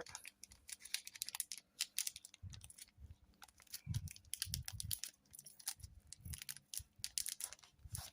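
Faint crinkling of a foil trading-card pack and soft clicks and taps as the cards are handled and slid through, in scattered irregular bursts.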